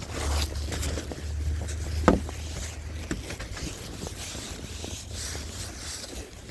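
Wind rumbling on the microphone while snow is brushed and scraped off a car's windshield, with one sharp knock about two seconds in.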